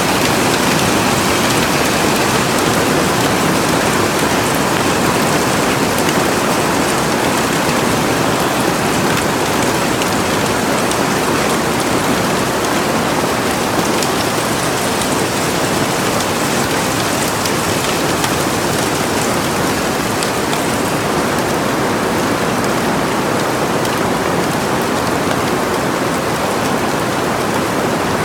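Hail and rain pelting a greenhouse roof in a dense, steady hiss, with faint sharp ticks of stones striking through it.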